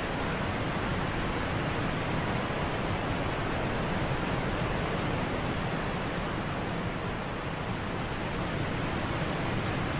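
Steady rushing of a waterfall: an even, unbroken roar of falling water that holds level throughout.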